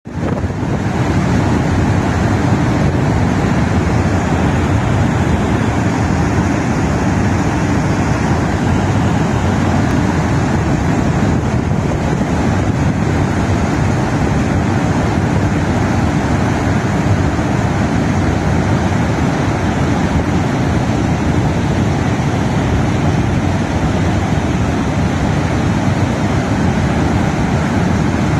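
Water pouring through the open spillway gates of the Sardar Sarovar Dam, a loud, steady, unbroken rush.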